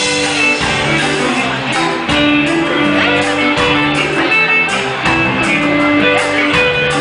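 Live band music between sung lines: guitar with bass, keys and drums playing on.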